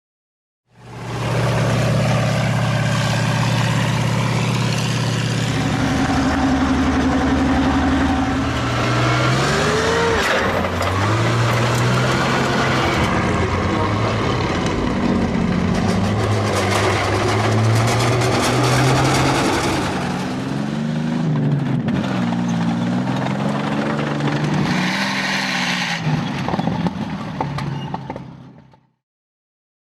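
A heavy engine running, its pitch steady at first and then rising and falling several times, with a rushing noise over it; it cuts in about a second in and stops shortly before the end.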